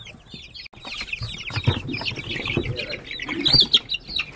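A brood of aseel chicks peeping nonstop, many short falling peeps overlapping. There are some knocks and scuffling in the middle.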